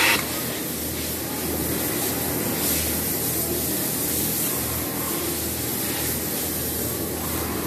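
Steady hissing noise of sewing machinery in a garment workshop, with a low machine hum that comes and goes and a sharp click at the very start.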